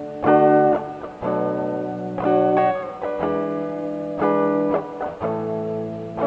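Background music led by guitar, with a new chord struck about once a second.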